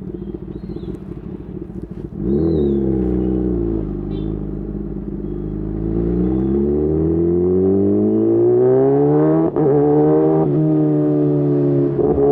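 Kawasaki ZX-10R inline-four engine through a de-catted aftermarket exhaust, running low at first, blipped sharply about two seconds in, then accelerating with a rising pitch broken by quick upshifts near the ten-second mark and near the end. The oxygen sensor has just been changed to reduce the exhaust's popping.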